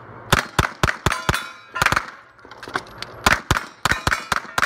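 Pistol-caliber carbine firing fast strings of shots at steel plates, about a dozen shots, each hit followed by the ring of struck steel. There is a pause of about a second between the two strings.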